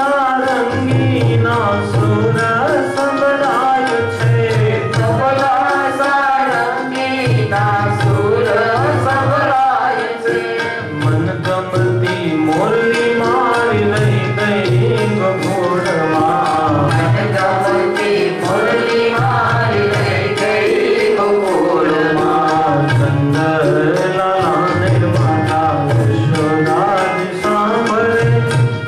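Devotional music: a man singing to hand-drum accompaniment, with low drum strokes recurring throughout.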